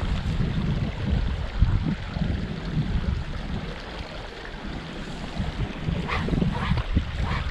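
Strong wind buffeting the microphone in uneven low gusts over the steady rush of a flowing stream.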